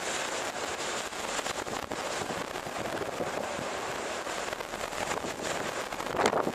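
Heavy rain pouring down: a steady hiss dense with sharp crackling drop impacts, and one louder, brief crack about six seconds in.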